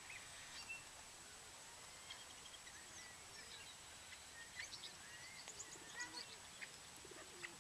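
Faint, scattered chirps and short calls of park birds over steady outdoor background noise.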